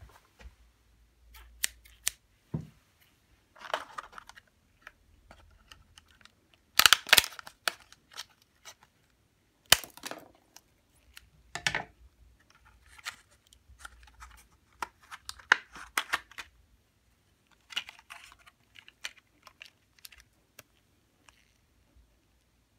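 Stiff clear plastic blister pack being handled and cut open with scissors: irregular crackles, clicks and snips, loudest about seven and ten seconds in.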